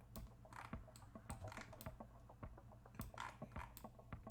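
Faint, irregular clicking of computer keys over a steady low hum.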